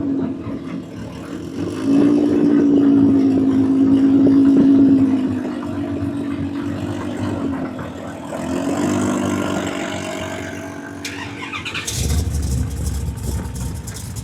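Car engine running, its pitch holding steady, dipping and returning, then climbing as the revs rise about ten seconds in. About twelve seconds in, the note gives way to a louder, rougher rumble with rapid crackle.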